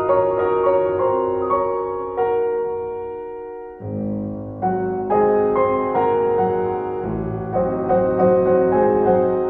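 Background piano music: single notes and chords struck and left to ring, with a brief lull just before four seconds in, after which lower bass notes join the melody.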